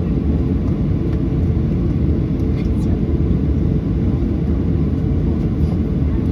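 Cabin noise of a Boeing 737-800 airliner: a loud, steady low rumble from its CFM56-7B engines and the airflow, unchanging in level.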